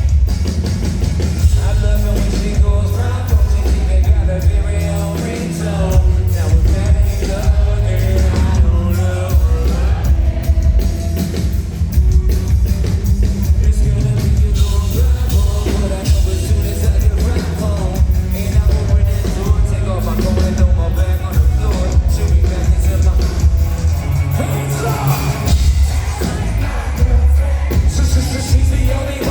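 A live band plays a pop-rap song with sung vocals over a heavy, booming bass line, loud throughout.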